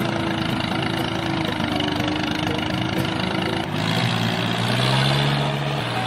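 Small motor of a DIY mini construction vehicle running steadily. Its tone switches abruptly to a lower hum about two-thirds of the way through, and that hum rises slightly.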